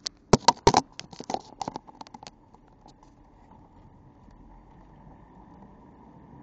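A quick run of sharp clicks and knocks for about the first two seconds, from the camera being handled and set in place. After that comes a faint steady hum, the stock 2004 Ford Mustang's 3.9-litre V6 idling, heard from inside the cabin.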